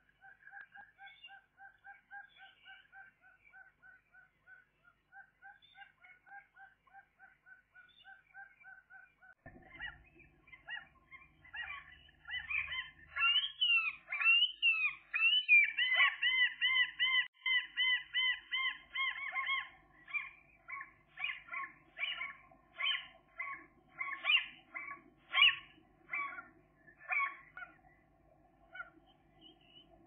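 Gulls calling: after faint, evenly repeated piping notes, a run of loud rising-and-falling cries begins about a third of the way in, then gives way to a string of short, separate calls.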